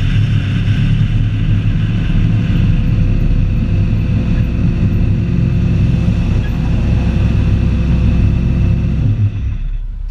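Drift car's engine running steadily at low revs, with no revving, then switched off about nine seconds in, the rumble dying away.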